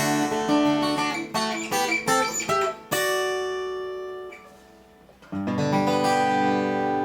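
Acoustic guitar played with quick picked notes, then a strummed chord left to ring and fade, and another chord struck about five seconds in and left ringing.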